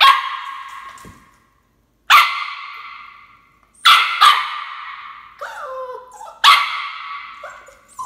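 Bichon Frise puppy barking repeatedly at his food bowls, demanding to be fed: sharp, high-pitched barks a second or two apart, each echoing briefly in the room.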